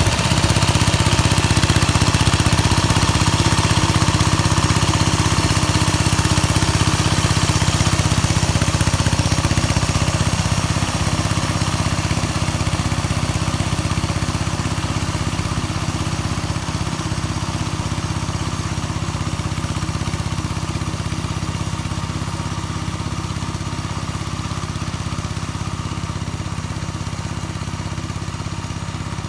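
Engine of a homemade motor-tractor built from a walk-behind tractor, running steadily while rotary-tilling, gradually growing fainter.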